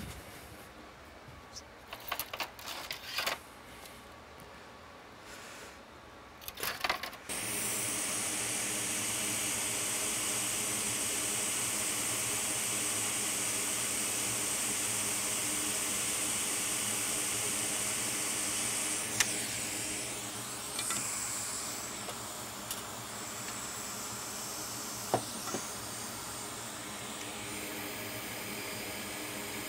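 Hot air rework station blowing steadily onto a MacBook logic board, a loud even hiss with a faint hum under it that starts about seven seconds in and eases slightly after about twenty seconds. Before it come a few light clicks of tools on the board.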